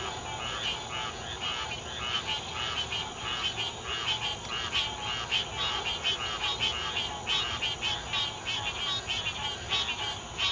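Chorus of frogs calling, a dense run of short repeated croaks several times a second with no let-up.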